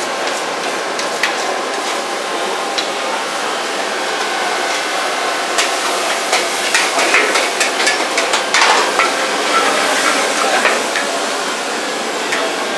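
Mee goreng being stir-fried in a wok: a steady sizzle with a metal spatula clanking and scraping against the pan, the clanks coming thickest in the second half.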